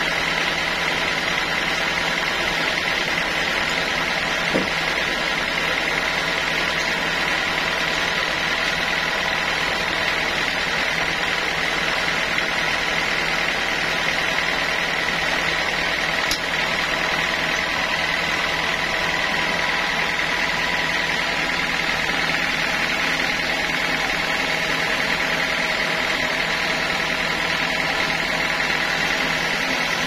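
Sawmill saw machinery running steadily: an unbroken mechanical drone with a constant high whine.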